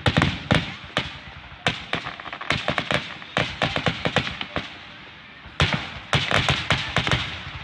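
Fireworks grand finale: a rapid, irregular barrage of aerial shell bursts going off in quick succession. It thins briefly about two-thirds of the way through, then a dense cluster of loud reports follows.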